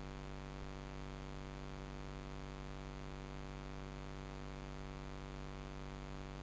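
Steady electrical hum with a layer of hiss, unchanging throughout, with no distinct events.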